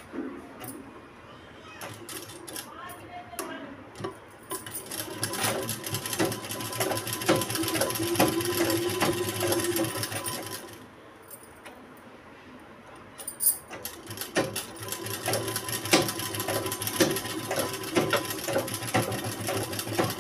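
Sewing machine stitching through fabric in two runs: it starts a few seconds in and runs for about six seconds, stops, then starts again about two-thirds of the way through and keeps going.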